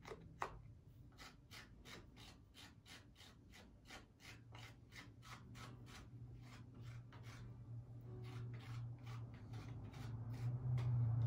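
Fingers rubbing soft clay in quick, evenly repeated strokes, about three or four a second, smoothing and thinning the seam on the outside of a slab-built clay cup. A low hum builds up in the second half and is the loudest sound by the end.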